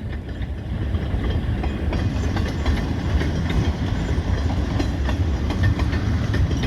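Loaded log cars of a long freight train rolling past slowly: a steady low rumble of wheels on rail with light clicking and clacking.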